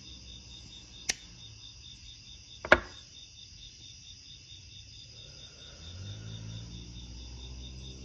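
Zippo lighter clicking: a light metal click about a second in, then a louder sharp clack near the three-second mark as the hinged lid snaps shut. Crickets chirp steadily underneath.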